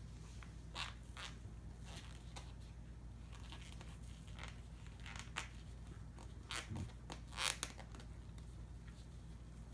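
Faint, scattered crunching clicks and scrapes from a cockatoo's beak working at food or being wiped clean, over a steady low hum.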